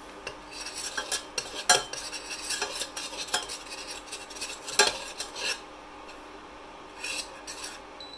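Metal spoon stirring and scraping around a stainless steel saucepan, with irregular clinks and two sharper knocks against the pan, over a light sizzle of flour frying in melted margarine as a roux is cooked.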